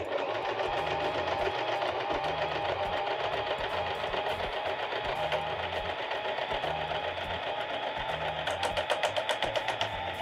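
Janome 2222 portable sewing machine running steadily at speed, stitching a decorative stitch pattern through fabric, with a spell of sharper, rapid clicking near the end.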